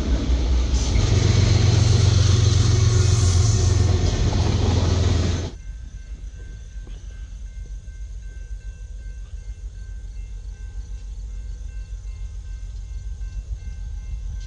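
Norfolk Southern freight train passing close by: loud rumble of wheels on rail with a diesel locomotive's low engine drone. It cuts off abruptly about five and a half seconds in to a CSX freight led by diesel locomotives rolling past at a distance, much quieter, a steady low rumble with a faint hum.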